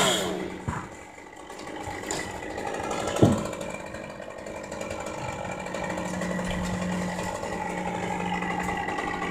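A chainsaw drops off the throttle at the start and then idles with a steady hum. There is a sharp knock about three seconds in.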